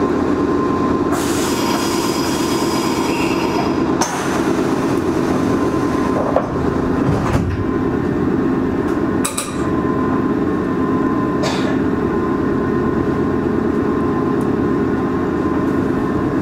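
Meitetsu 6000 series electric train running, heard from inside the passenger car: a steady rumble of motors and wheels on rail, with a few sharp clicks along the way.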